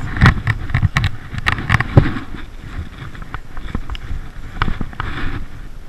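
Close-up handling noise: a rain jacket rustling against the microphone and irregular knocks and scrapes as a landing net is picked up and gripped alongside a fishing rod. The knocks are densest in the first two seconds.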